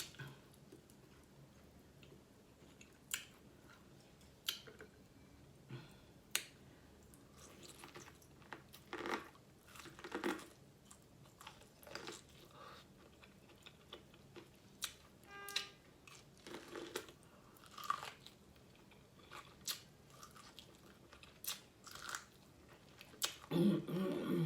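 Close-up chewing and biting of a seafood boil: scattered wet smacks and clicks of mouth and lips while eating, with a louder, lower burst near the end.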